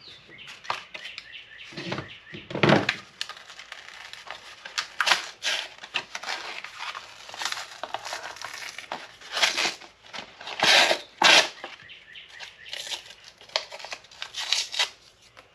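Spring clamps unclipped and paper peeled and torn away from freshly epoxied screwdriver handle scales: a series of short rips, crackles and crinkles, loudest about two-thirds of the way through.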